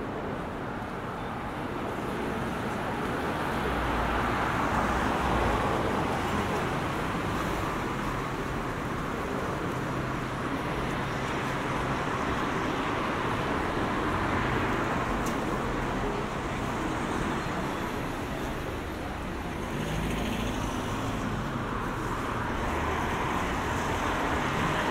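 Street traffic on a rain-wet road: cars passing with tyres hissing on the wet tarmac, the sound swelling and fading as each passes.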